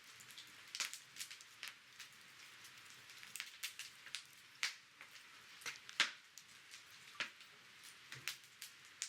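Wood campfire crackling: irregular sharp pops and snaps over a faint steady hiss, one louder pop about six seconds in.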